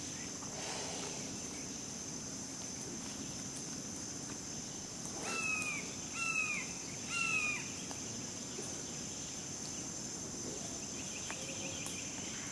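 Steady high-pitched insect buzz over natural swamp ambience; a little past the middle, a bird gives three short, slightly falling calls about a second apart.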